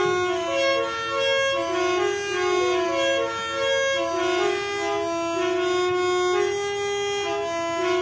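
Background music: a single melody line of clear held and moving notes, with vibrato on the longer ones, in a violin- or flute-like tone.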